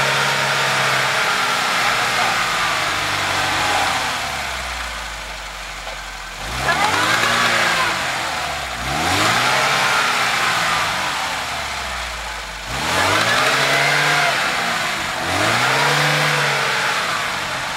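Lada Niva's four-cylinder engine revving up and down in repeated surges every couple of seconds as the stuck car tries to drive out of the mud while being pushed.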